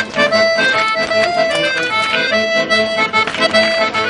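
Accordion playing a lively traditional dance tune for rapper sword dancing, with occasional sharp clicks from the dance.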